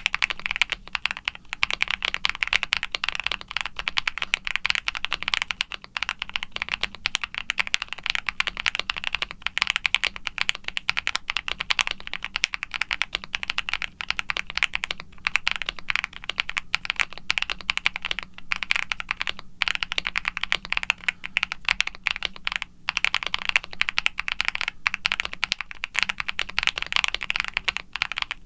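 Continuous, fast typing on a CreateKeebs Luminkey75 mechanical keyboard: an aluminium case with a polycarbonate plate and full foam dampening, lubed Akko Creamy Lavender Pro tactile switches and GMK doubleshot ABS keycaps. The keystrokes come in a dense, unbroken stream.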